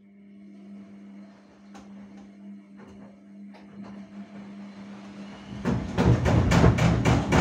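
Gorenje front-loading washing machine running with laundry turning in the drum: a steady motor hum that slowly grows louder, then about five and a half seconds in a much louder rhythmic rumble of about four pulses a second.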